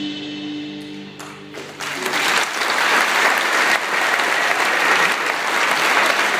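The band's last chord rings out and fades, then the audience breaks into sustained applause about two seconds in.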